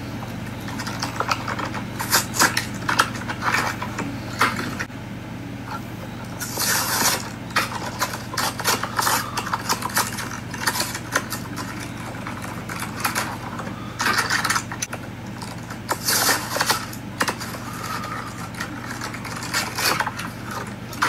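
Clear plastic blister pack of a diecast toy car crinkling and crackling in irregular spurts as it is peeled and pried off its cardboard backing card.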